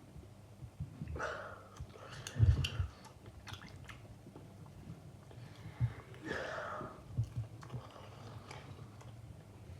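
A person coughing in two bouts about four seconds apart. The first, about a second in, holds a couple of sharp loud coughs; the second starts about six seconds in and is softer and wheezy.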